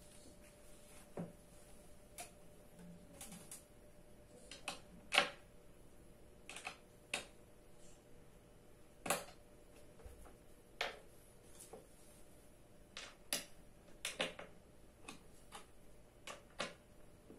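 Scattered light clicks and knocks, about twenty at uneven intervals, from hard plastic and metal office chair parts being handled and fitted together during assembly.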